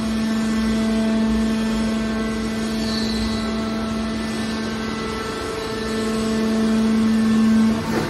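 Hydraulic power unit of a horizontal scrap steel baler running under load, a steady machine hum that grows louder about six seconds in.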